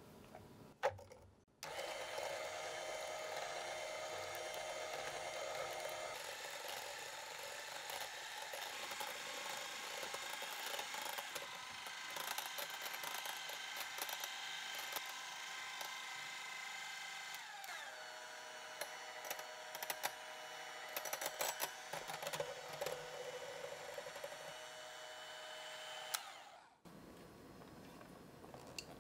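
Electric hand mixer whisking whole eggs and sugar, its motor whining steadily as the mixture beats up to a thick, pale foam. About 17 seconds in its pitch slides down as it is switched to a lower speed, and it stops shortly before the end.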